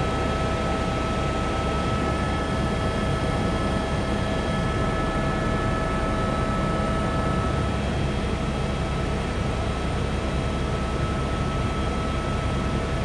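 Aircraft engine running steadily, heard from on board: a loud, even drone with a few steady whining tones above a low rumble.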